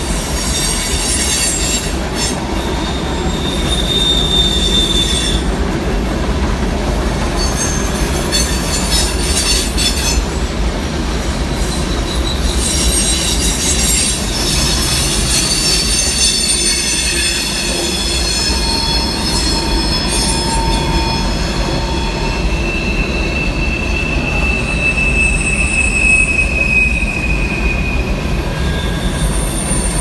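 Freight train cars rolling past with a steady low rumble, and high-pitched squeals from the steel wheels on the rails coming and going, several overlapping in the second half and one long squeal falling slightly in pitch near the end.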